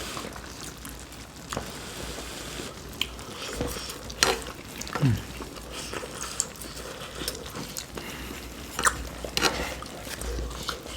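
Close-miked eating of budae jjigae (Korean army stew): chewing and wet mouth sounds, with a few sharp clicks now and then, the loudest about four seconds in and again near nine seconds.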